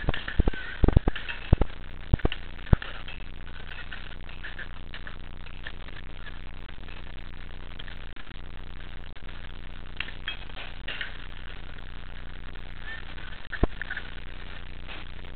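Busy indoor play hall: distant children's voices and shouts over a steady low hum. A quick run of sharp knocks or clicks comes in the first three seconds, and one more near the end.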